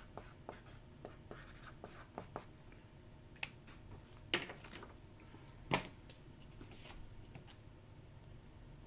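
Faint scratching and scattered light clicks of small handling at a desk, with a few sharper ticks near the middle.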